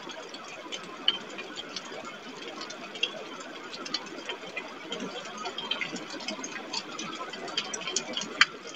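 Storm rain and wind on an outdoor webcam microphone: a steady rushing, with irregular sharp ticks of drops striking. The loudest tick comes near the end.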